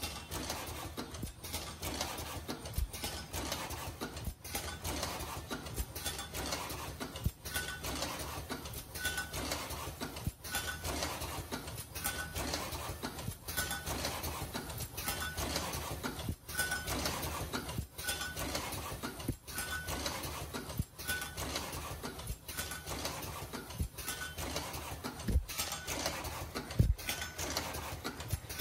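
Automatic cross-loop face mask making machine running: a steady mechanical clatter of its pneumatic and conveyor parts repeating in a cycle about every second and a half, with a short tone on each cycle. Two louder knocks near the end.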